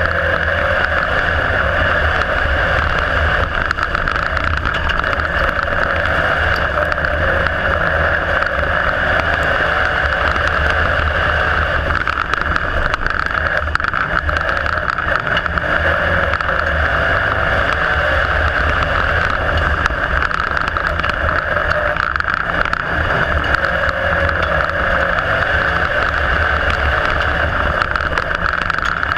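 IMCA Modified dirt-track race car's V8 engine running hard at racing speed, loud and steady with slight rises and falls, heard from inside the car's cockpit.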